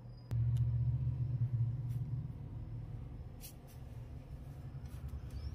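A low, steady hum-rumble that starts abruptly with a click about a third of a second in, with a few faint ticks above it.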